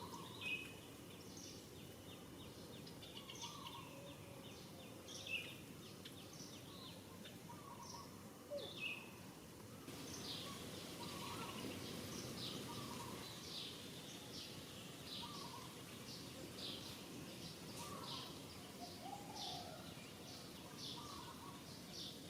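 Birds chirping: short high calls repeated again and again, more regular and a little louder in the second half, with some lower chirps mixed in, over a steady background hiss.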